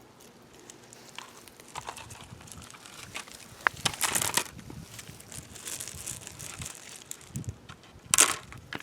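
Rocks being handled and set into terracotta saucers: scattered clicks and scrapes, with a louder scraping rush about four seconds in and another near the end.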